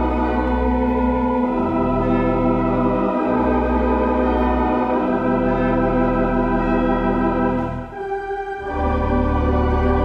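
1934 Compton theatre pipe organ (four manuals, sixteen ranks) playing held chords over a pedal bass line that moves to a new note every second or two. The sound thins briefly at a break in the phrase about eight seconds in, then the full chord comes back.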